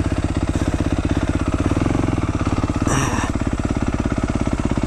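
2021 Yamaha YZ250F's single-cylinder four-stroke engine running at low revs with distinct firing pulses, lifting slightly around two seconds in. A brief sharp noise cuts in about three seconds in.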